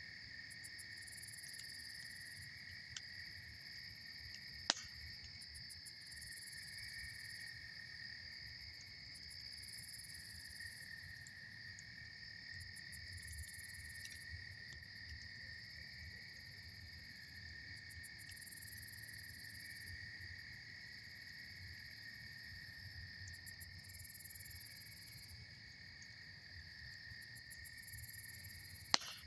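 A steady chorus of insects trilling at two high pitches, with a few sharp pops from a campfire, the loudest about five seconds in and just before the end.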